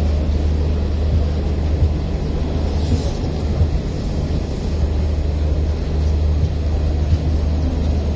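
Indian Railways passenger coaches rolling slowly past along a platform as the train pulls into the station, with a steady low hum and an even rumble.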